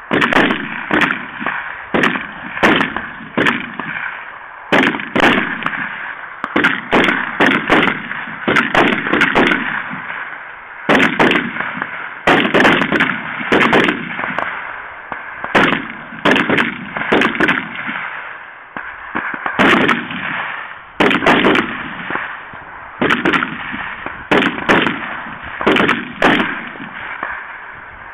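Gunfire at a shooting range: many sharp shots at irregular intervals, often overlapping as from several shooters at once, each followed by an echo.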